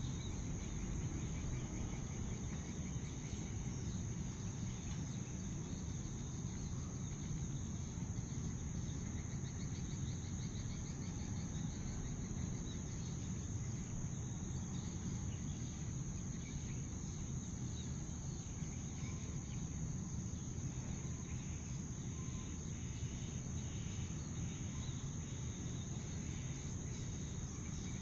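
Steady high-pitched insect chorus, unbroken throughout, over a constant low rumble.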